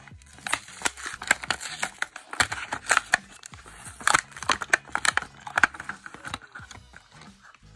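A Hot Wheels blister pack is torn open by hand: quick rips and crinkles as the cardboard backing card is peeled away from the plastic blister. The sound stops about six seconds in, once the car is free.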